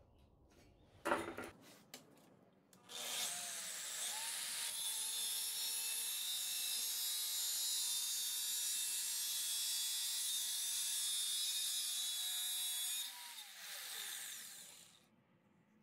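Stanley angle grinder spinning up with a rising whine, then running steadily with its disc grinding steel and throwing sparks. It is switched off near the end and its pitch falls as it spins down. A few light metal clicks come before it starts.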